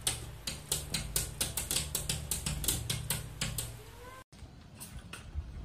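Rapid, irregular clicking, about five or six clicks a second, over a steady low hum. It stops abruptly at a cut about four seconds in.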